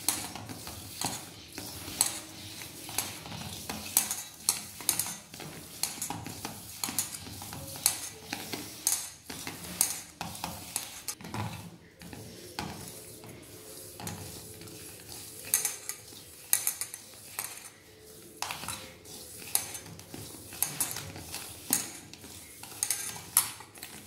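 A hand working a crumbly mung dal flour, sugar and ghee mixture in a stainless steel bowl: irregular scraping and rustling of the crumbs against the steel, with frequent sharp clicks of metal on the bowl.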